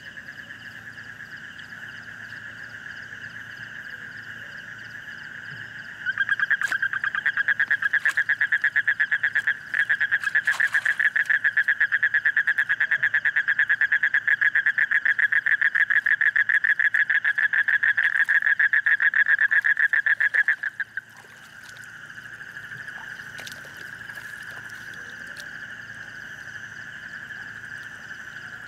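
A chorus of frogs calling steadily. About six seconds in, a nearer frog starts a loud, fast pulsing call that goes on for about fifteen seconds and then stops suddenly.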